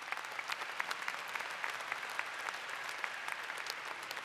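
Large audience applauding and cheering, a dense, steady patter of many hands clapping.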